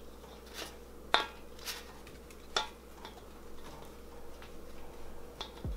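Light metallic knocks and clinks as breadsticks are lifted off a metal baking sheet and set against the rim of a stainless steel mixing bowl, about seven separate taps, the sharpest a little over a second in.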